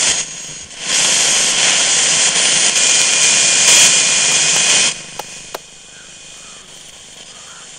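Small portable radio giving out loud static as its tuning knob is turned, with a faint steady whistle in the middle. About five seconds in the static drops to a quieter hiss, with two short clicks.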